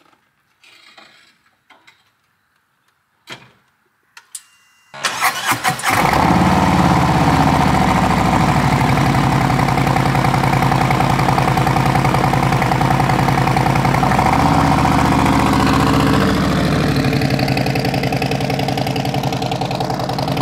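Harley-Davidson Road Glide V-twin with TAB Performance slip-on exhaust: a few faint clicks and knocks, then about five seconds in the starter cranks and the engine catches. It settles into a loud, steady idle, and near the end the pitch rises as the bike pulls away.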